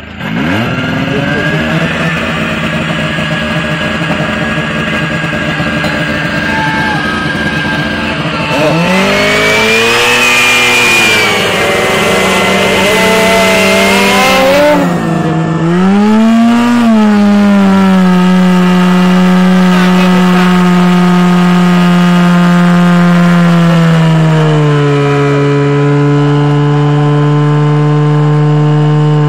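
Portable fire pump engine catching and running loud. It is revved up and down several times from about 9 to 17 seconds in, then held at a steady speed that drops a little in pitch near the end, as the pump drives water into the hose lines.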